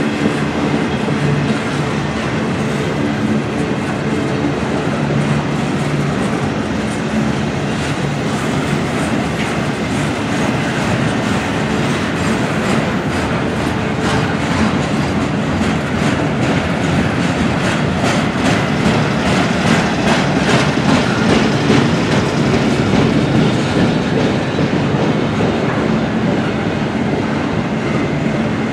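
Double-stack intermodal freight train's container-laden well cars rolling past, steel wheels rumbling steadily with a dense run of clicks over the rail joints, a little louder about twenty seconds in.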